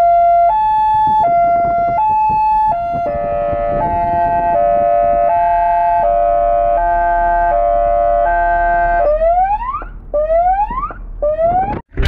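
Police car siren sounding a two-tone hi-lo wail. About three seconds in it switches to a faster, lower two-note pattern, then near the end gives three rising whoops before cutting off.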